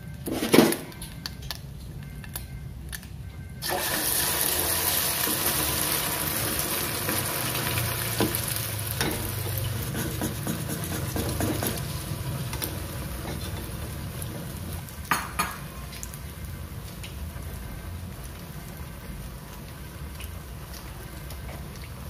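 Beaten egg poured in a thin stream into hot oil in a small pot, breaking into loud sizzling and frothing that starts suddenly about four seconds in and slowly dies down. A few knocks on the pot come in the first second, and two more about fifteen seconds in.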